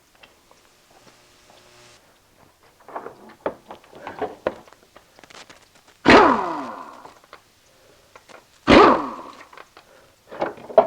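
Metal engine parts and hand tools clinking and rattling during timing chain guide removal. There are two loud metallic clanks a couple of seconds apart, each ringing briefly as it dies away.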